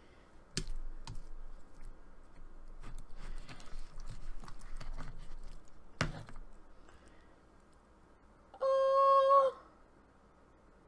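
Clear, sticky slime with fishbowl beads mixed in being squished and stretched by hand: soft crackling, with sharp pops about half a second in, again at one second, and about six seconds in.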